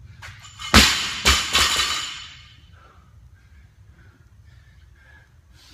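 A 135-pound barbell with bumper plates dropped from shoulder height onto rubber gym flooring: one heavy bang about a second in, a second bang half a second later, then a few smaller bounces with the plates rattling, dying away within about two seconds.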